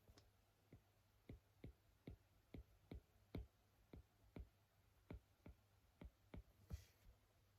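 Faint, sharp clicking taps at an uneven pace, roughly two a second, with a short scratchy hiss a little before the end.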